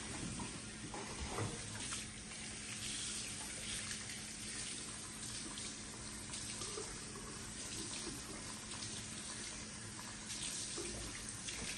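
Tap water running steadily into a sink during a hair wash.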